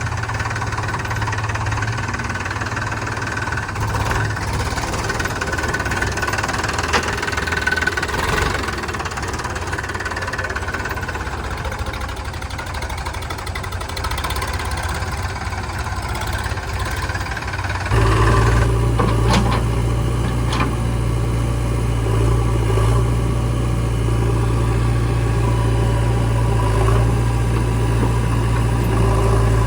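Diesel engine of heavy earthmoving or tractor machinery running steadily. About two-thirds of the way through the sound changes abruptly to a louder, deeper steady hum.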